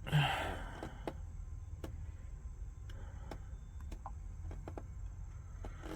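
Faint, scattered clicks over a steady low hum, with a short breath right at the start.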